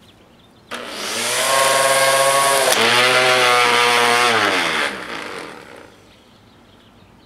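Corded electric string trimmer with a 3D-printed blade attachment switched on and spinning up to a steady whine with a rushing hiss. A sharp crack comes about two seconds in, as the printed blade fails on contact with the grass. The trimmer is then switched off and winds down, its pitch falling away.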